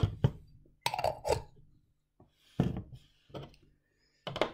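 A handful of separate light knocks and clinks as a glass jar of water and a metal teaspoon are moved and set down on a tabletop, with short pauses between them.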